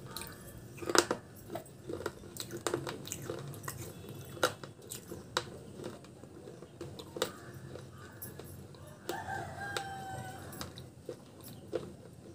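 Hard crunching and chewing of broken baked-clay (terracotta) pot pieces, a string of sharp irregular crunches. About nine seconds in, a drawn-out animal call sounds once, lasting a second and a half.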